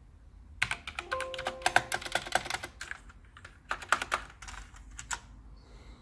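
Rapid typing on a Talius Kimera mechanical keyboard with clicky Kailh Blue switches, heard as a dense run of key clicks with a second shorter run starting about four seconds in.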